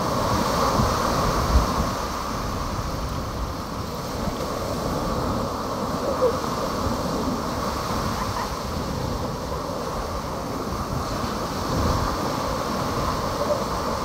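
Small Gulf of Mexico waves washing onto a beach in a steady wash of surf, with wind rumbling on the microphone.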